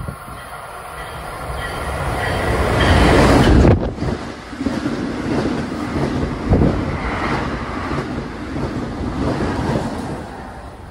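New Jersey Transit push-pull train of multilevel coaches running past along the platform. The rumble builds as it approaches and peaks nearly four seconds in, then the coaches' wheels rumble and clack by steadily, with the electric locomotive at the rear going past near the end.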